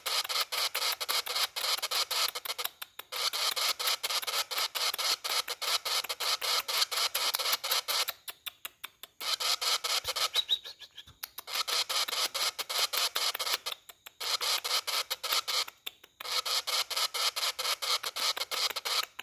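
Young lovebird chicks, about a month old, giving a rapid, raspy chatter of begging calls, several a second, broken by a few short pauses.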